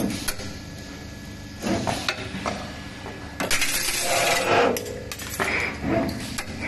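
NER3D-7 3D CNC wire bending machine feeding and bending steel wire: sharp metallic clicks and clinks as the bending head works, over a low steady machine hum, with a longer rattling clatter a little past the middle.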